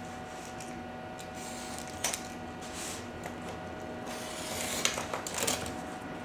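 A utility knife slicing and scraping along a sheet of vulcanized stamp rubber on a work table, with a sharp click about two seconds in and denser cutting strokes near the end. A steady low hum runs underneath.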